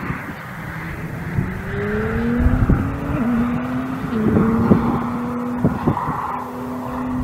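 Koenigsegg Jesko Absolut's twin-turbo V8 accelerating hard: the engine note climbs, drops a step at a gear change about three seconds in, then holds a steady high-revving note. Several sharp cracks come in among it.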